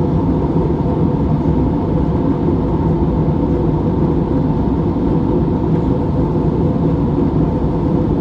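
Steady cabin noise of an Airbus A320-family jet airliner in cruise, a constant deep rumble of engines and rushing air with a faint hum in it.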